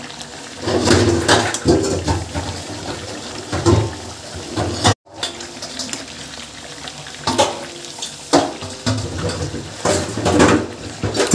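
Metal ladle stirring chicken curry in a metal kadhai, scraping and clinking against the pan in repeated bursts while the gravy sizzles. The sound cuts out for a moment about halfway through.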